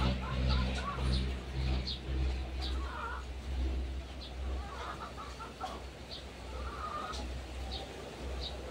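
Chickens clucking now and then, over short high chirps and a steady low rumble. A low pitched hum fades out in the first two seconds.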